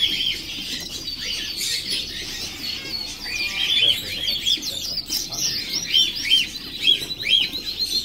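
Many small caged birds chirping, with zebra finches in the nearest cages; short, quick chirps repeat throughout and grow busier about halfway through.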